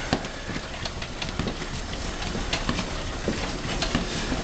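A sport motorcycle with a flat rear tyre being pushed by hand over a concrete floor: rolling and scuffing noise with footsteps and many scattered small clicks and knocks.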